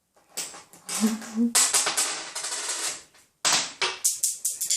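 Coins clicking and clattering on a hard surface as a pet bird pushes them about, in two rapid runs of clicks with a short break a little after three seconds in.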